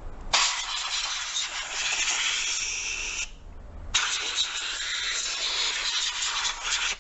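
Compressed-air blow gun blasting over the valve guides of a Toyota 1NZ-FE cylinder head, clearing off leftover bits of old valve-seal rubber. There are two long hisses of about three seconds each, with a short break between them.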